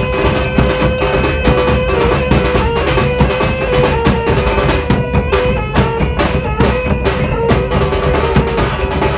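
Traditional Minangkabau music for the Tari Galombang dance: drums and struck percussion playing a busy rhythm under a held melody line that moves in small steps.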